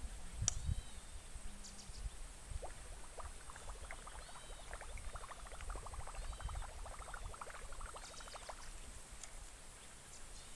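Fishing reel being cranked as a lure is retrieved: a fast run of light clicks lasting about six seconds in the middle, after a few low handling knocks near the start.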